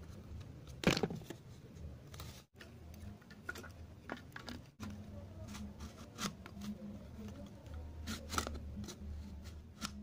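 Thin plastic bottle being handled and turned: scattered crinkles and taps, the loudest about a second in and another at about eight and a half seconds, over a low steady hum.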